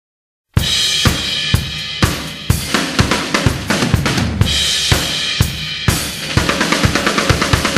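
Background music: the drum-kit intro of a pop-rock song, with snare, bass drum and cymbals, starting about half a second in. Hits come about twice a second, then a quicker drum fill near the end.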